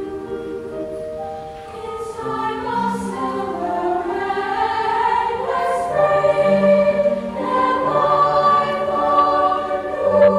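Girls' choir singing in several-part harmony, holding long sustained notes and growing louder from about two seconds in.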